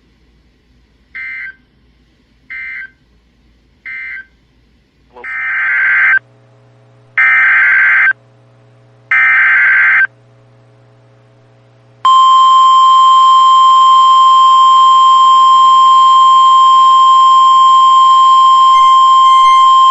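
NOAA Weather Radio Emergency Alert System tones: three short digital data bursts ending one message, then three longer, louder SAME header data bursts, then about twelve seconds in the steady 1050 Hz weather radio warning alarm tone, which runs on past the end. Together they announce a new alert, here a severe thunderstorm warning.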